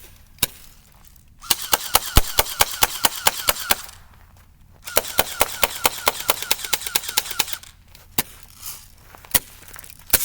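Airsoft M4 electric rifle firing: one shot, then two full-auto bursts of about two to three seconds each at roughly nine shots a second, then two single shots near the end.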